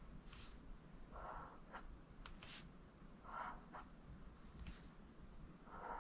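Felt-tip marker writing on lined notebook paper, faint. Three short scratchy strokes come about two seconds apart as lowercase j's are drawn, with small sharp taps between them.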